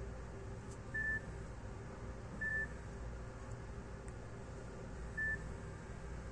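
Nokia 5230 mobile phone giving three short, high single-pitch beeps, unevenly spaced, over a faint low hum.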